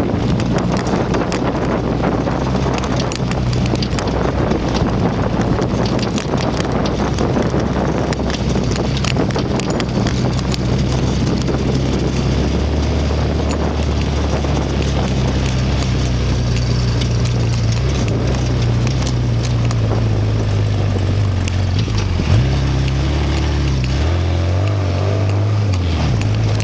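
Off-road vehicle engine running steadily as it drives a rough dirt trail, with wind buffeting the microphone and many short rattles and knocks from the bumpy ride. The engine note changes pitch about two-thirds of the way through, with a single thump.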